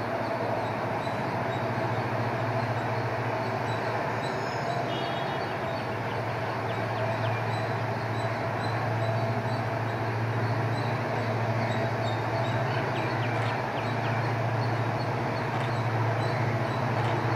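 Diesel engine of an approaching WDP4 locomotive (EMD 16-cylinder two-stroke) droning steadily at a low pitch, slowly growing louder as the train draws nearer.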